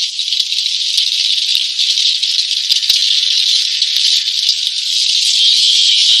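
Steady high hiss of rain pattering on a tarp shelter, with scattered faint ticks in the first few seconds.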